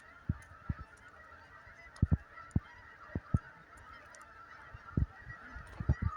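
A flock of farm fowl calls continuously in a dense, overlapping chatter. A dozen or so short low thumps, likely the microphone being knocked, are the loudest sounds.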